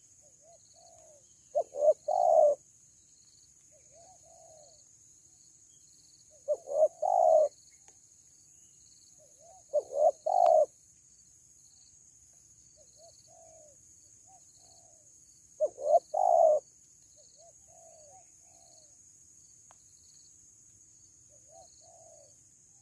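Spotted dove cooing: four loud phrases, each two short notes followed by a longer coo, a few seconds apart. Fainter coos from another dove fill the gaps between them, over a steady high-pitched buzz.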